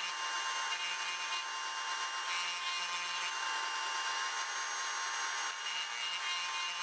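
Handheld rotary tool running steadily at high speed, a small bit grinding into a sanded, CA-glue-coated 3D-printed plastic piece to carve detail back in. A steady whine without a break.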